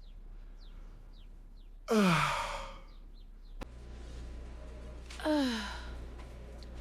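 A person yawning twice, each yawn ending in a breathy voiced exhale that slides down in pitch; the first is the louder.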